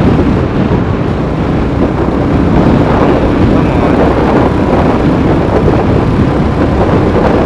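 Royal Enfield Classic 350's single-cylinder engine running steadily at cruising speed of about 80 km/h, with wind rushing over the microphone.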